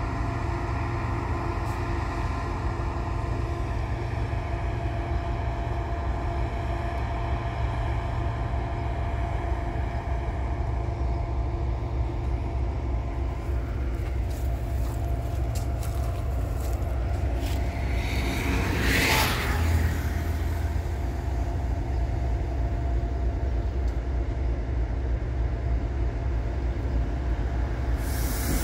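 Matisa C75-2c ballast cleaner's machinery running steadily with a low rumble and a steady hum. A short burst of hiss comes about two-thirds through, and a louder hiss starts near the end.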